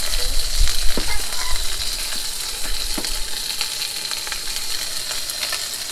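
Food sizzling steadily as it cooks, with a couple of light clicks, about a second in and again near three seconds.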